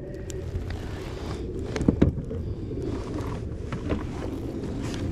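Steady low rumble, with a few sharp knocks and clatters against the boat, twice close together about 2 s in and once about 4 s in.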